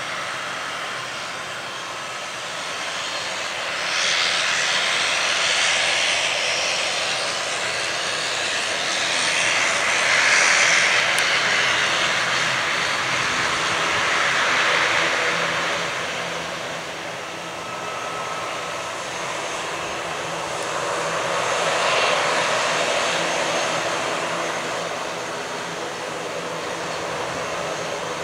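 Airbus A320's jet engines running at taxi power as the airliner rolls past, a steady rushing hiss that swells and fades several times.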